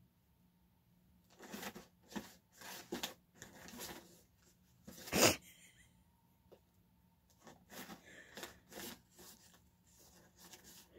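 A guinea pig rummaging inside a cardboard box of packets, rustling and crinkling the paper and plastic packaging in short bursts, with one much louder burst about five seconds in.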